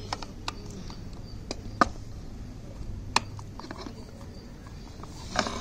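Screwdriver backing a screw out of the plastic rear housing of a steam iron: scattered light clicks and taps, with two sharper clicks near the middle.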